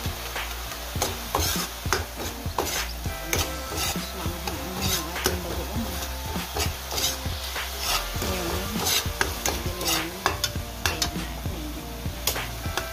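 A metal ladle scraping and knocking against a wok in repeated strokes while stirring chopped tomato and onion, which sizzle in the hot oil.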